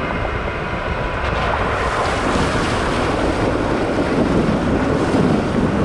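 Jeep Wrangler driving through a shallow, rocky creek crossing: water splashing and tyres churning over wet stones, mixed with engine noise and wind rushing on the microphone. The splashing grows louder about two seconds in as the vehicle enters the water.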